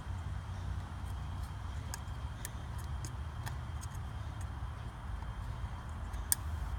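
Scattered light clicks and taps from handling a plastic oil filter housing cap, the sharpest about six seconds in, over a steady low outdoor rumble.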